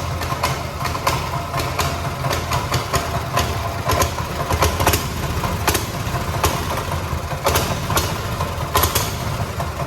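Brand-new Realtree 200 mini bike engine idling steadily just after a cold first-pull start, with irregular sharp ticks over its low running note.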